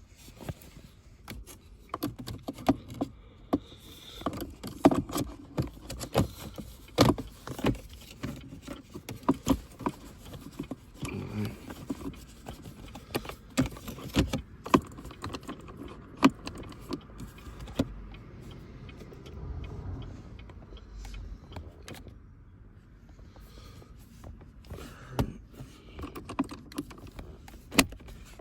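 Irregular clicks, knocks and small rattles of hand work as a billet pistol-grip shifter handle is worked down onto a car's automatic shift lever.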